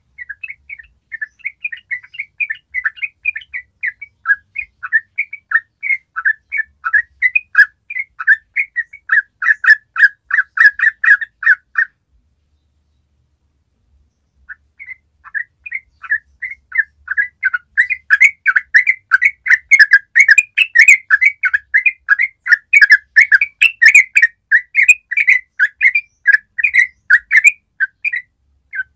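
Yellow-vented bulbul singing a fast, unbroken run of short notes, several a second. It breaks off for about two seconds near the middle, then starts again.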